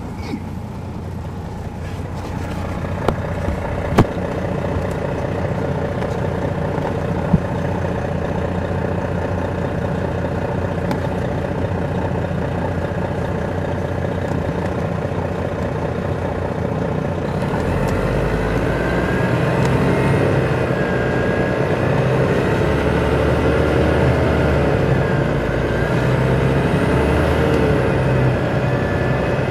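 Detroit Diesel Series 60 diesel engine of an MCI D4000 coach, heard inside the cabin from the back seat, running with the bus under way. About 17 seconds in it grows louder and heavier, its pitch rising and dipping several times. A few sharp clacks sound in the first eight seconds.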